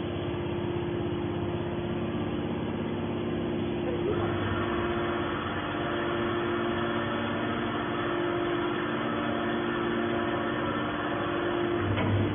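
Hydraulic baler's electric motor and pump running with a steady hum. About four seconds in the sound turns brighter and stays that way.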